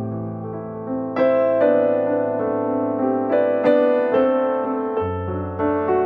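Background piano music: held chords with new notes struck every half second to a second.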